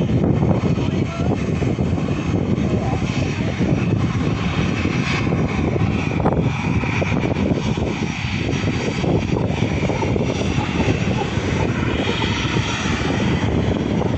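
Jet airliner's twin engines running at taxi power as it moves along the apron: a steady, unbroken engine roar with a faint high whine.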